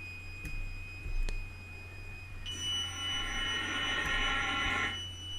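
Electronic drone of steady high, pure tones over a low hum. About halfway through the tones step up in pitch and a brighter cluster of tones swells for a couple of seconds, then fades.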